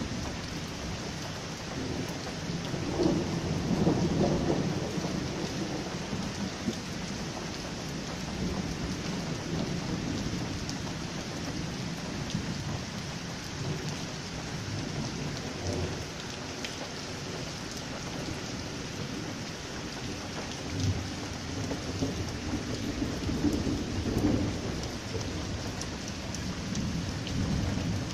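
Heavy rain falling steadily on paving, puddles and trees, with thunder rolling in long low rumbles. The loudest rumble comes about three to five seconds in, and more swell up again in the last third.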